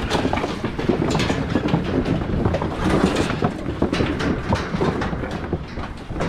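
Feral hogs crowded and jostling inside a welded-wire hog cage, making a continuous clatter of metal rattling and knocking with short grunts mixed in.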